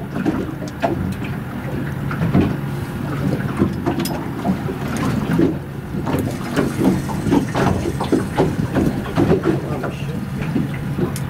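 Steady low hum of a boat's motor running, with irregular knocks and clicks over it.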